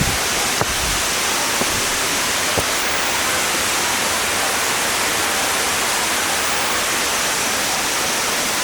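Waterfall water rushing steadily, an even hiss with no letup, with a couple of faint clicks near the start.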